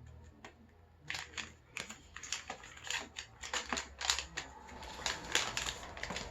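Close-up chewing of a mango chocolate bar: an irregular run of crisp clicks and crunches that starts about a second in.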